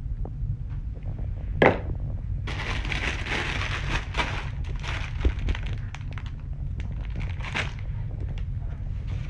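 Plastic bags rustling and crinkling as things are handled in a packed suitcase, after a sharp knock about one and a half seconds in, over a steady low hum.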